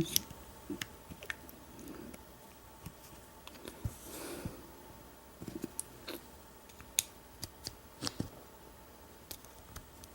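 Scattered small metallic clicks and light scraping from a hook pick and tension bar working the pin stack inside an American 1305 padlock, the clicks coming irregularly a few times a second at most.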